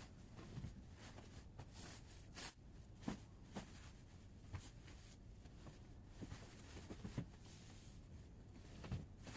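Faint rustling of a bedsheet being spread and smoothed over a mattress, with a few soft bumps and swishes at irregular moments.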